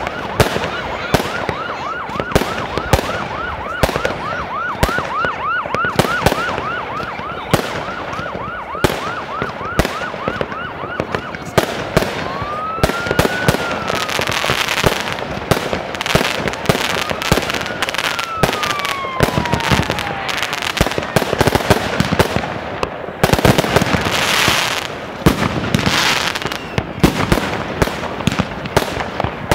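New Year's fireworks going off in a dense string of bangs. For the first ten seconds or so there is a fast run of short whistles, several a second. Two long whistles rise and fall around the middle, and there are bursts of crackling later on.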